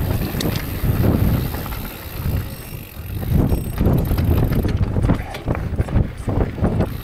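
Orbea Rise electric mountain bike rolling down a rocky singletrack: tyres crunching over loose stones, with steady low rumble and many knocks and rattles from the bike over the bumps, easing briefly about three seconds in.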